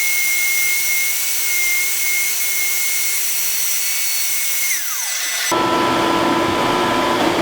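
Table saw with a shop vac attached, running with a steady high whine. About five seconds in, the pitch falls as the saw motor is switched off and winds down. A steady motor hum, the shop vac, then comes in suddenly and keeps running.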